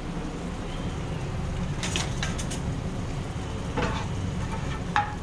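A metal ladle scraping and clinking against a pan as a stew is stirred: a few scrapes about two seconds in, more near four seconds, and a sharper knock near the end. A steady low hum runs underneath.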